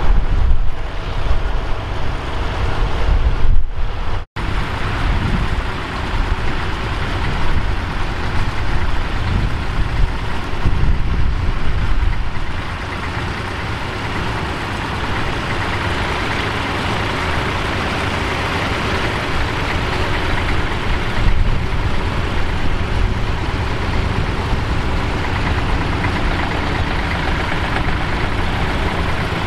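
Bukh Juno tractor's diesel engine running steadily under load while pulling a plough through the ground. Wind gusts on the microphone in the first few seconds, and the sound cuts out for an instant about four seconds in.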